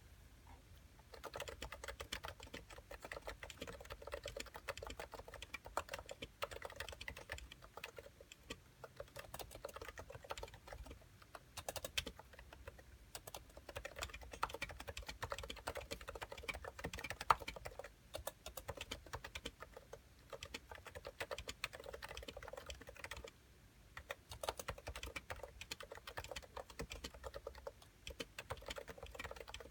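Steady typing on a Cooler Master Novatouch keyboard with 45 g Topre electro-capacitive switches under Ducky thick PBT keycaps. Rapid keystrokes start about a second in and run on with a few brief pauses.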